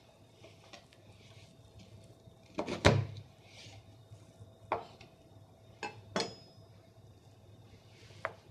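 Kitchen knife cutting through a raw chicken's leg-thigh joint, the blade knocking sharply on the cutting board: a loud cluster of knocks about three seconds in, then single knocks near five and six seconds and once more near the end.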